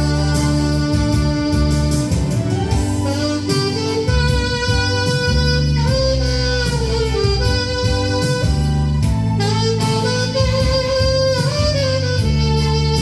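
A 1965 Buescher 400 saxophone playing a slow song melody in held, gliding notes over a backing track with bass and guitar.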